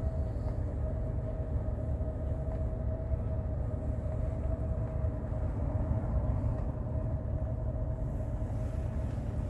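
Mercedes-Benz W126 500 SE's V8 running steadily on LPG with a low, even rumble of engine and road noise, and a constant thin whine on top.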